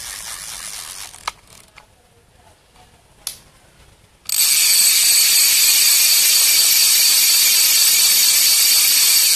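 Sougayilang Thunder LS40R overhead fishing reel's clicker ratchet rattling loudly and steadily as the spool spins freely, the sound it makes when a big fish takes line. It starts suddenly about four seconds in. Before it come the softer whirr of the reel being cranked and a couple of light clicks.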